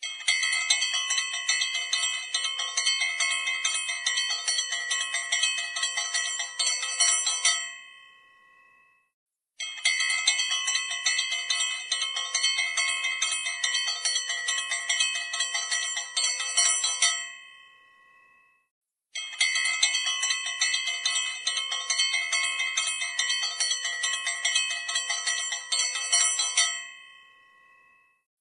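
Puja hand bell rung rapidly and continuously in three runs of about seven and a half seconds each. Each run trails off into a short ringing decay before the next begins.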